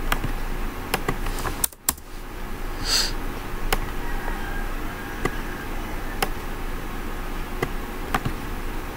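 Scattered sharp computer mouse clicks, roughly one a second, over a steady background hiss and low hum.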